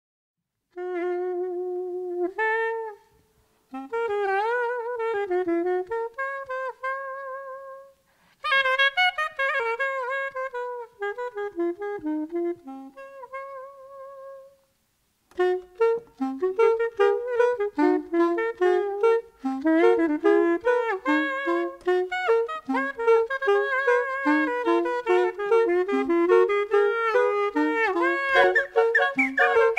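A live wind instrument playing a slow solo melody in separate phrases with short pauses, the held notes wavering slightly. About halfway in the music becomes faster and busier, with many more short notes and no more pauses.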